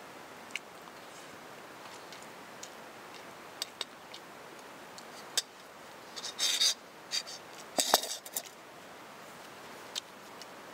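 A fork clinking and scraping against a small metal camp pot, in scattered light clicks, with two louder clatters about two-thirds of the way through, the second the loudest with a short metallic ring.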